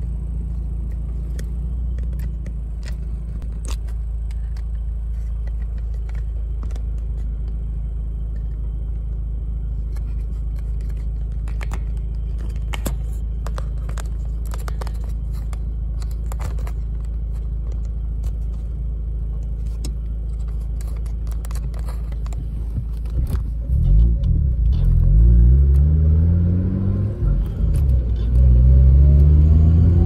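Mazda RX-8's two-rotor Renesis rotary engine idling with a steady low drone, with scattered light clicks, heard from inside the cabin. Near the end it pulls away: the engine note rises under acceleration, drops at a gear change, then rises again in the next gear.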